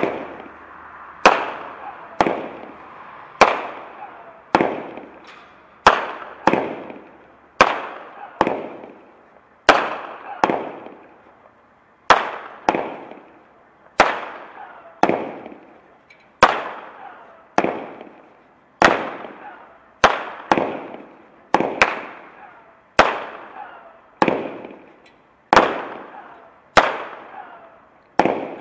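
Powerhouse Fireworks 'Shazam' 16-shot cake firing shot after shot: a long run of sharp bangs, roughly one to two a second, each followed by a fading crackling tail.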